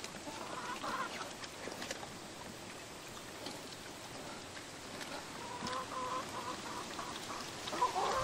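Chickens clucking: short calls about a second in and again around six seconds, the loudest near the end.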